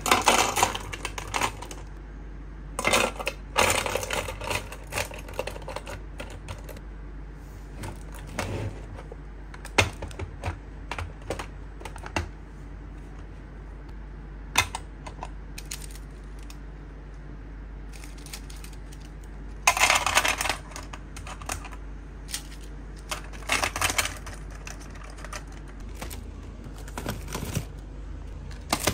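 Plastic pens clattering and clicking against each other and against clear plastic trays as they are handled and sorted, in irregular bursts of rapid clicks with short pauses between. A low steady hum runs underneath.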